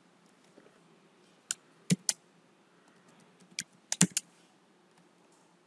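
Computer keyboard keystrokes: about seven sharp, separate key clicks in two short clusters, one around a second and a half in and one around four seconds in.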